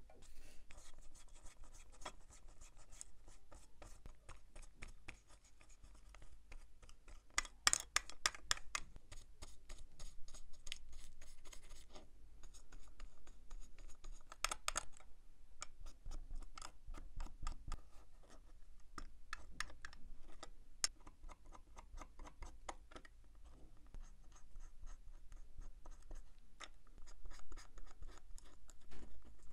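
Small hand tools scratching and clicking against watch parts in irregular taps and scrapes, with a quick cluster of clicks about 8 seconds in and another about 15 seconds in.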